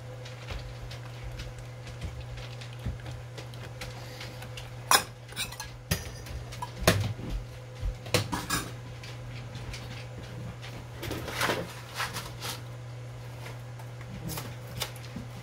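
A utensil scraping and clinking against a stainless-steel saucepan while stirring a sauce, with irregular sharp knocks, the loudest in the middle, over a steady low hum.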